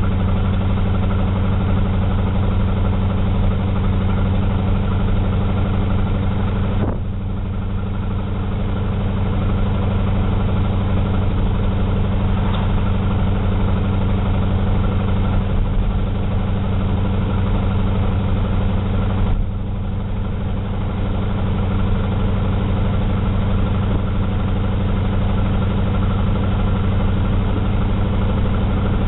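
Car engine running steadily under way, heard from inside the cabin, a loud low drone mixed with road noise. It eases off briefly twice, about a quarter of the way in and again about two-thirds through.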